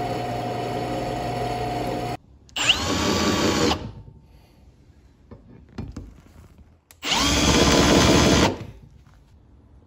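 Drill press running, its bit boring through steel plate, cutting off about two seconds in. Then a handheld drill with a countersink bit spins up with a rising whine and chamfers the drilled holes in two bursts of a second or so each. The countersink bit is dull, and it chatters in the steel.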